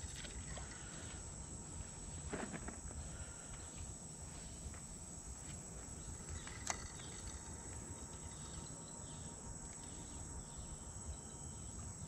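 Insects trilling steadily at a high pitch over a low outdoor rumble, with a single sharp click a little before the midpoint.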